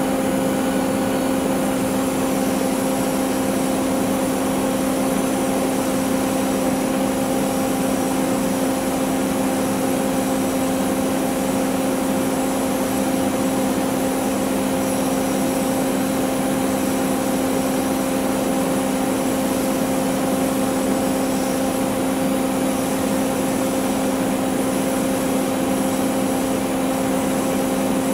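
Yanmar 4TNV98CT four-cylinder diesel engine idling steadily, its pitch constant with no revving.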